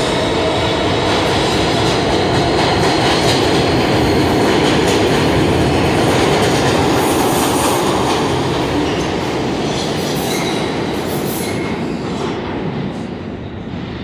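New York City subway train running out of the station into the tunnel: a loud, steady rumble of wheels on rail that fades over the last few seconds as the train draws away.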